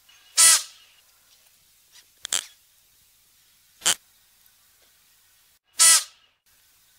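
Klipspringer giving four short, sharp calls about two seconds apart, the first and last the longest and loudest.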